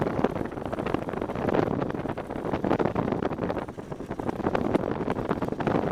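Motorcycle riding along a gravel track: engine and tyre noise mixed with wind buffeting on the microphone, with a brief drop in level about four seconds in.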